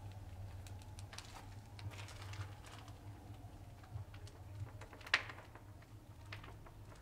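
Footsteps scuffing and crunching irregularly on a path of fine sand and small stones, with one sharper click about five seconds in, over a steady low hum.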